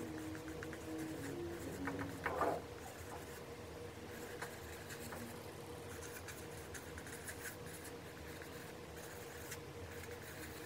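Felt-tip marker scratching on paper in faint, short strokes as words are written on a paper pad, with a brief louder rustle or knock about two seconds in and a faint steady hum underneath.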